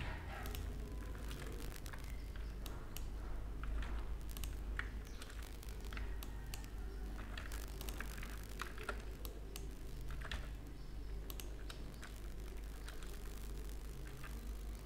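Computer keyboard keys clicking at irregular intervals as shortcuts are typed, over a steady low hum.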